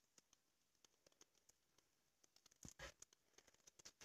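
Faint, scattered crackles and ticks from an omelette frying in a pan on low heat, with a short louder cluster of crackles a little under three seconds in.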